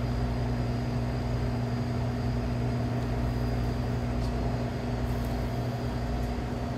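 Steady low electrical hum of running equipment, with a few faint light clicks near the end.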